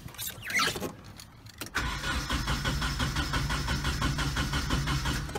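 1992 Nissan 240SX's four-cylinder engine cranked by its starter, turning over with an even rhythm for about three and a half seconds from about two seconds in without catching. It is not firing: no spark, which the owner puts down to a bad distributor pigtail.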